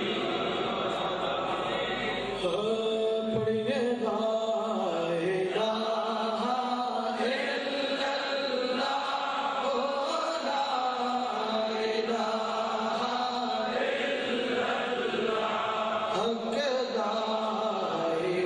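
A man's voice chanting the durood (salawat) into a microphone, in a slow, drawn-out melodic line whose pitch rises and falls in long glides.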